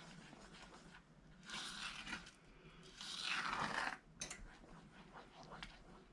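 A stirring utensil scraping across the bottom of a heavy saucepan of boiling fudge mixture (sugar, butter and evaporated milk), in two longer strokes followed by a short click. The constant stirring keeps the boiling sugar from sticking and burning on the bottom.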